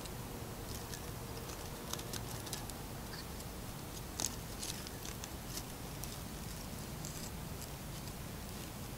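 Small kindling fire of feather-stick shavings and thin split sticks crackling in a folding steel firebox stove. There are sparse light crackles and ticks over a faint steady hiss, with one sharper crackle about four seconds in.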